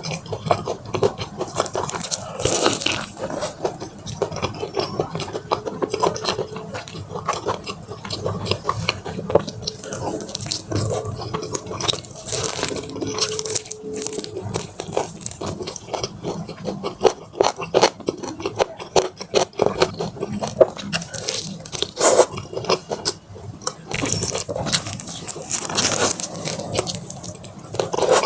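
Biting and chewing crispy Korean fried chicken drumsticks: dense crunching crackles throughout, with a louder crunch every few seconds.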